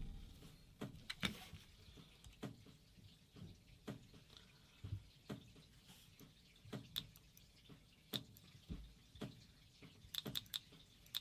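Dye DM4 electronic paintball marker clicking as its new board is tested: scattered single clicks, then about a second before the end a fast, even run of clicks at about ten a second as it cycles in ramp fire mode.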